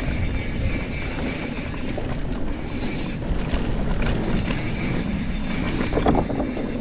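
Mountain bike rolling fast down a dirt trail, with wind rumbling on the camera microphone and the bike rattling over the ground in a steady, dense noise.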